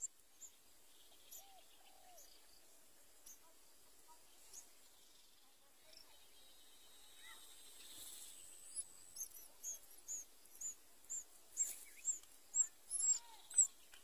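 Sooty-headed bulbul nestlings begging: thin, high peeps, scattered at first and then coming quickly, two to three a second and louder, in the second half as the adult comes to feed them.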